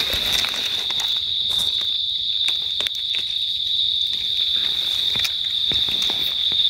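An insect's steady high-pitched buzz, one unbroken tone, with scattered crackles of dry leaf litter.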